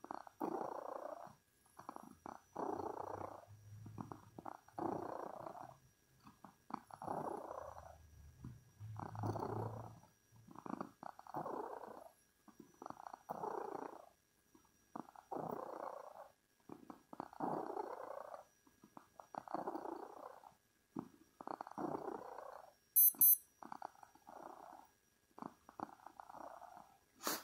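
Domestic cat purring close up, in a steady rhythm that rises and falls with each breath, about once a second. A brief high-pitched electronic beep sounds once near the end.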